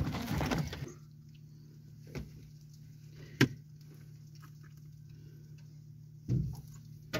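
Pliers and hook handling sounds while a hook is worked out of a flathead's mouth: a couple of short sharp clicks and a louder knock near the end, over a low steady hum.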